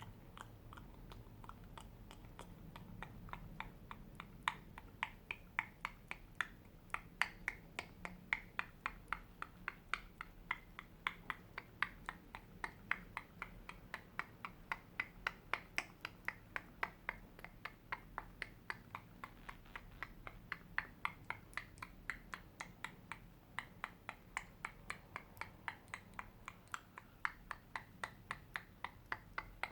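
Close-miked ASMR clicking: a steady train of short, sharp clicks, about two to three a second, getting louder a few seconds in.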